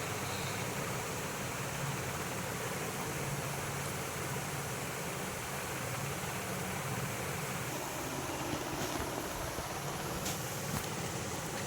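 Steady low hum and hiss of background room noise, with a couple of faint clicks near the end.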